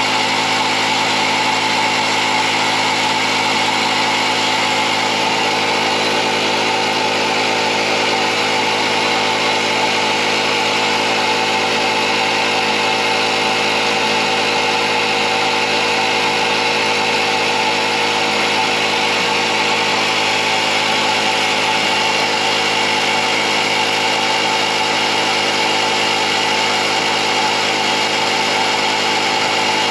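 Small air compressor running steadily, inflating the newly fitted rear tyre.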